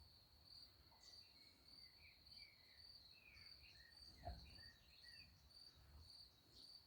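Faint, steady high-pitched chirping of a cricket, pulsing about twice a second. Scattered faint bird chirps sound over it, and there is a single soft knock about four seconds in.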